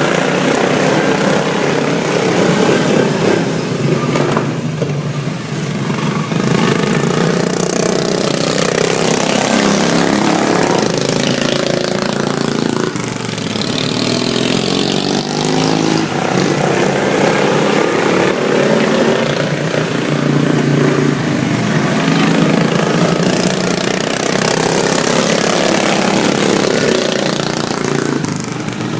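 Super stock racing lawn mower engines running at speed, their pitch rising and falling over and over as they rev up and back off.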